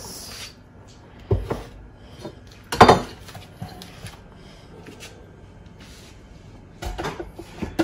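Hard plastic clunks and knocks as a Ninja blender pitcher and its lid are handled on a stone countertop: a few separate knocks, the loudest about three seconds in, then a quick cluster of clicks and knocks near the end as the lid is fitted.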